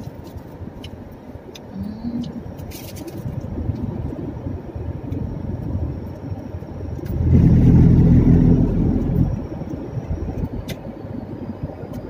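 Car driving, heard from inside the cabin: a steady engine and road rumble. About seven seconds in it swells for roughly two seconds into a much louder, lower rumble.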